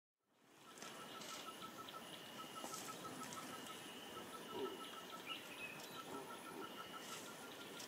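Natural rainforest-clearing ambience of calling insects and birds, fading in at the start. A fast, even pulsing call runs throughout, with short higher calls repeating about once a second and one brief louder sound about halfway through.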